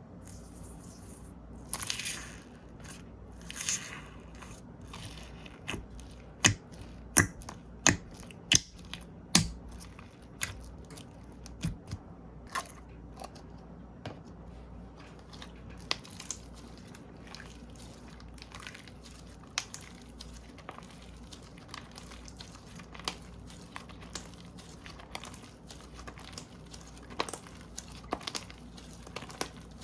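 Slime being squeezed and poked by hand, giving a run of sharp popping clicks as air pockets burst, then scattered softer pops and crackles.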